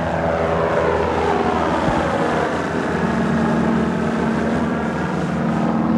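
E-Gull electric ultralight flying past overhead: its propeller, driven by a Zero motorcycle electric motor through a reduction gearbox, makes a pitched hum. The pitch drops over the first couple of seconds as it goes by, then holds steady as it climbs away.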